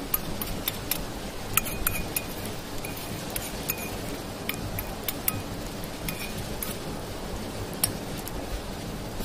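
Light metallic clinks of a steel bowl and cookware being handled, a dozen or so irregular ticks, several with a short ringing note, over a steady hiss.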